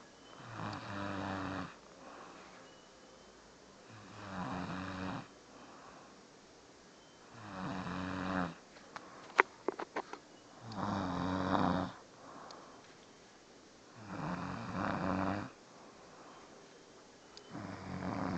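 A man snoring in his sleep, one rasping snore about every three and a half seconds, six in all. A few sharp clicks come about halfway through.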